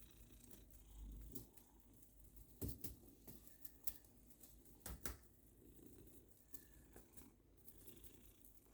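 Near silence: room tone with a few faint sharp taps and rustles, two of them a little louder, about two and a half and five seconds in.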